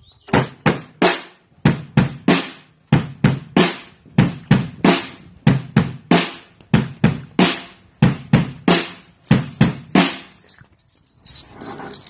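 A drum struck hard in a steady rhythmic pattern, about two to three beats a second in short groups, stopping about ten seconds in. A high jingling starts near the end.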